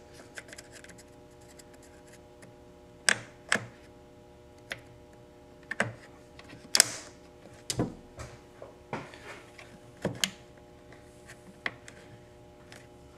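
Plastic clicks and scrapes as a plastic trim tool pries and presses at a new plastic windshield cowl and its push-in fastener on a 1997 BMW E36 M3, the fastener not seating. About ten sharp clicks come at irregular intervals over a faint steady hum.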